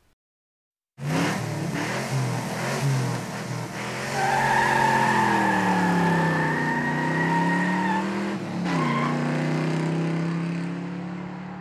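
Car engine running and revving, its pitch rising and falling, coming in suddenly about a second in. A high steady squeal rides over it from about four to eight seconds in, and the whole sound fades out near the end.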